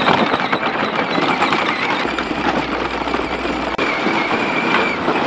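Electric ride-on toy tractor driving, its motor whining steadily over the crackle and rattle of plastic wheels rolling on a dirt and straw floor.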